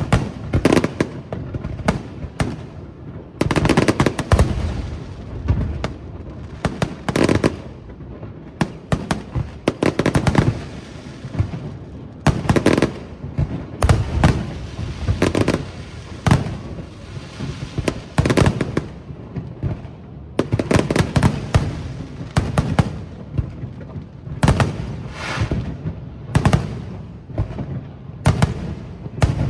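Aerial fireworks display: shells bursting in quick clusters of sharp bangs, several a second at times, with short gaps between the volleys.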